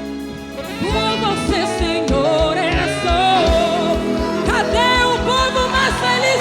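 Live forró band playing: a steady drum beat comes in about a second in, under a sung melody.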